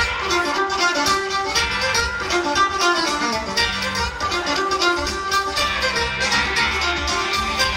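Live folk band playing an instrumental tune through a hall PA: fiddle leading over mandolin, guitar, electric bass and drum kit.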